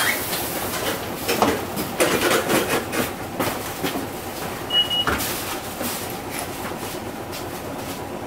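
Cabin sound inside a Hino Rainbow II non-step bus: clatter and knocks of the body and fittings over a steady low running rumble, with a short high beep about five seconds in.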